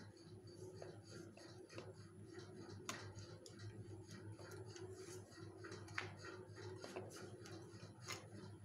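Kitchen knife cutting through set fudge and tapping on a plastic cutting board: faint, irregular taps, with a few sharper knocks about three, six and eight seconds in. A low steady hum runs underneath.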